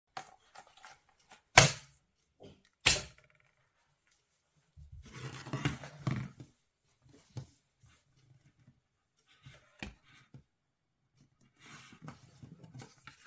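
Two sharp knocks as a phone and plastic accessory boxes are set down on a hard tabletop, then a couple of seconds of sliding and rubbing as they are pushed across it. Light clicks follow, and soft rustling of the screen protector's packaging near the end.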